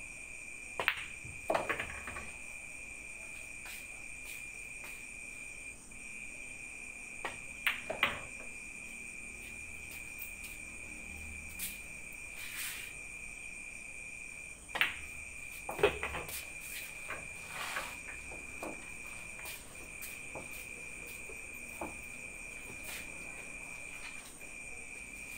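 Pool balls clicking on a nine-ball table: sharp clicks of the cue striking the cue ball and balls knocking together, in clusters about a second, eight seconds and sixteen seconds in. Under them runs a steady, high cricket trill.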